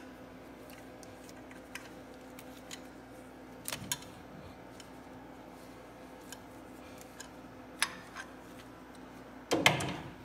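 C-clamp being screwed in against an old pad to push the brake caliper piston back, making faint scattered ticks and a few sharper clicks of steel on steel, over a steady low hum. Near the end, louder metal clanking as the clamp is taken off the caliper.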